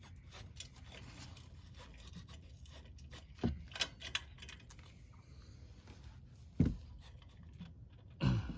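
Quiet handling of metal exhaust parts being fitted back together by hand: light scraping and rubbing with a few dull knocks, the loudest about two-thirds of the way in.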